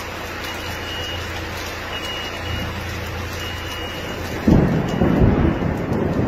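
A steady hiss, then about four and a half seconds in a sudden loud, rolling low rumble of thunder that goes on to the end.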